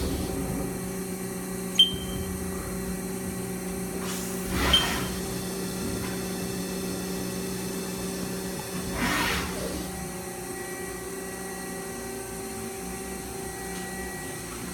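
CNC lathe running with a steady motor hum, one sharp metallic click about two seconds in and two brief hissing swells of cutting or coolant spray; the hum changes pitch about ten seconds in as the spindle speed changes.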